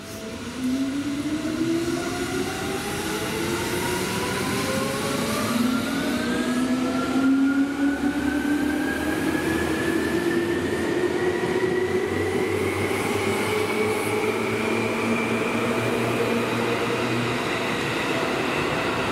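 Yellow Seibu Shinjuku Line electric train pulling away, its traction motors whining in several tones that climb steadily in pitch as it gathers speed, over the rumble of the wheels.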